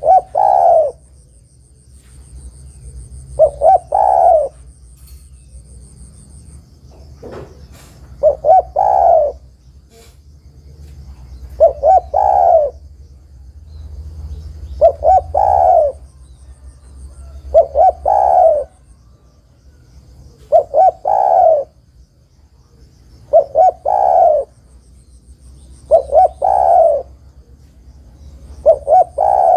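Female spotted dove cooing: a short phrase of a few notes, repeated about every three seconds. It is a call to attract males.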